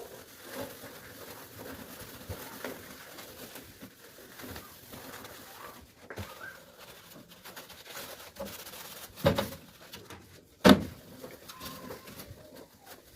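Kitchen cleaning noises: objects being handled with small clicks, and two sharp knocks about nine seconds in, a second and a half apart.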